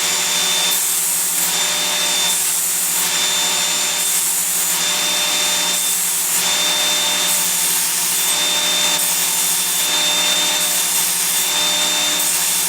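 Small electric knife sharpener's motor running with a steady high whine, while a knife blade is drawn through its abrasive again and again at a 20-degree setting: a grinding rasp that swells and fades with each pass.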